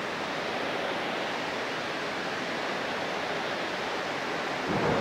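Steady rush of water from a spillway, an even constant noise that grows a little louder near the end.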